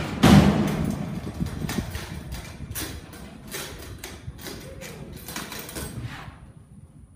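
Bucking bull bucking across a dirt arena: a loud bang just after the start, then an irregular run of thuds and clatters that stop about six seconds in.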